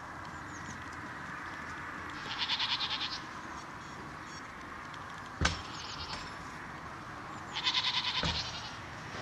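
A foal whinnying twice, each call about a second long with a fast quavering tremble. A single sharp knock falls between the two calls.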